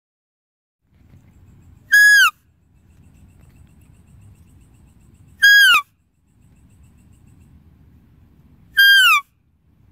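Three short, high, whistling deer calls about three and a half seconds apart, each held level and then dropping in pitch at the end. A faint low rumble fills the gaps between them.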